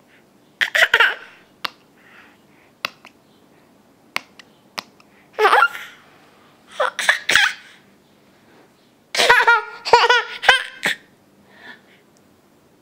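Baby laughing in four bursts of giggles, the longest about three quarters of the way through.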